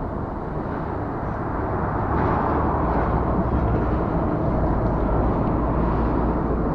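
Steady low rumble of road traffic on the bridge overhead, swelling over the first couple of seconds and then holding.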